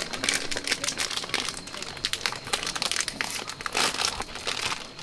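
Plastic snack bag crinkling as it is handled and opened, in a dense run of irregular crackles.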